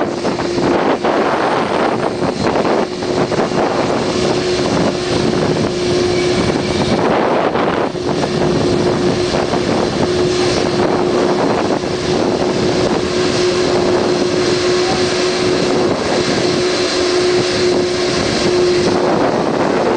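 Airbus A330-200 airliner taxiing close by, its turbofan engines running at low power with a steady drone and a held tone. Wind buffets the microphone now and then.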